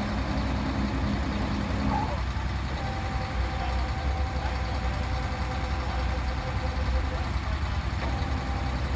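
Engine of a truck-mounted tree spade running steadily with a low rumble while it holds a transplanted palm tree; a thin steady whine comes in about three seconds in and fades out near the end.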